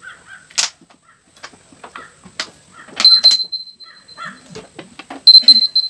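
Plastic water bottles clicking and crinkling as two people drink from them fast. About three seconds in, a phone countdown timer goes off with a loud, high, steady beeping, which sounds again near the end.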